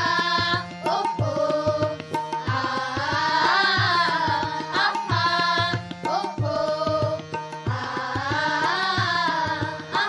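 A group of children singing a song together at a microphone, accompanied by tabla drums keeping a steady beat.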